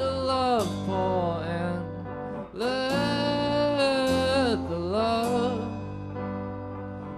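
Small rock band playing live: drum kit and electric guitars, with long held notes that slide down in pitch every couple of seconds and a few cymbal hits. The music gets quieter toward the end.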